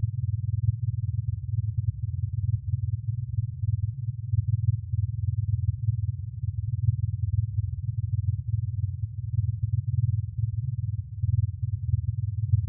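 Electroacoustic computer music: a dense, low, fluttering drone with nothing high in it, made by computer processing of recorded toad mating calls.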